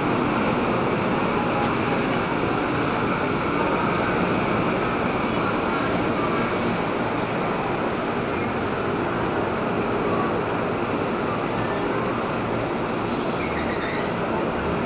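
KRL Commuterline electric commuter train moving along the tracks beside the platform: a steady noise of wheels running on the rails.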